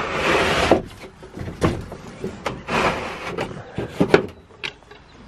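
A wooden shed door scraping as it is moved, then several separate knocks and rattles as it is shut and fastened.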